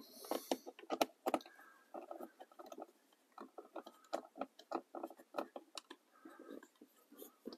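Quarter-inch stubby gearless ratchet with a 5.5 mm socket backing out the mounting screws of a faulty HVAC blend door (recirculation) actuator under the dash: faint, irregular clicks in quick runs with short pauses.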